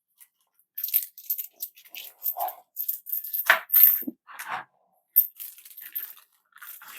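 Solid metal coin tokens being handled, clinking and clicking against each other in an irregular run of sharp clicks with some short rustles.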